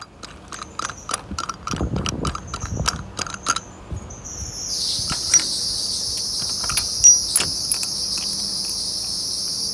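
Sharp, irregular clicks and taps for the first four seconds or so, as the A/C hose and fitting are handled in the crimping tool. A steady high-pitched insect chorus then fades in about halfway and holds.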